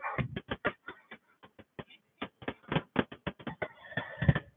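Irregular clicks and taps, several a second, from a person shifting on an exercise ball and walking her feet back in to sit up, with a short rubbing hiss near the end.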